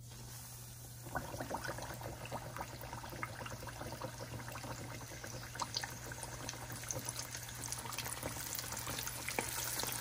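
Flour-battered pufferfish pieces deep-frying in hot oil in a saucepan: a dense crackling sizzle that jumps up about a second in as the fish goes into the oil, then keeps building.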